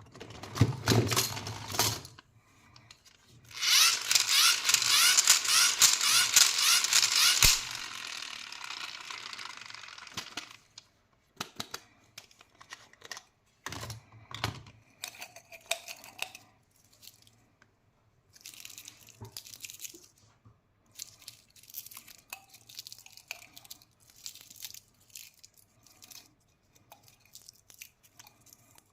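Candy wrappers being torn open and crinkled. It is loudest in a dense burst of crinkling and tearing a few seconds in, then gives way to scattered light rustles and clicks as the packets are handled.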